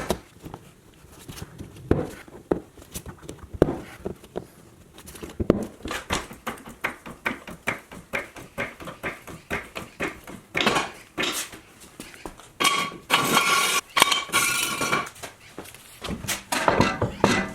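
Hand tools clicking and clinking on metal while the suspension is worked on, with a run of regular clicks, about three a second, in the middle and longer rattling bursts near the end.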